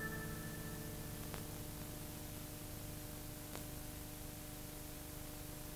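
The last high note of the music fades out over about the first second, leaving a steady hiss and hum with two faint clicks.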